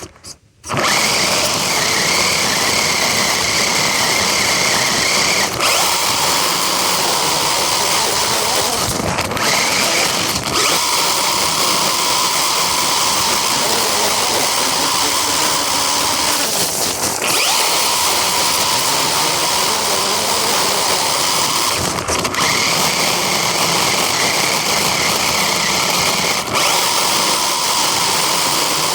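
Radio-controlled car's electric motor and gears whining steadily as it drives, with a few brief breaks and shifts in pitch. It cuts out for a moment right at the start.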